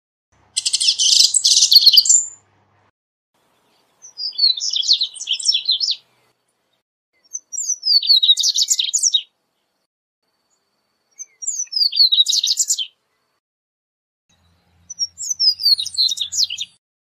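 Male double-collared seedeater singing: five quick, high twittering song phrases of rapid trills and downslurred notes, each lasting one and a half to two seconds, with pauses of about two seconds between them.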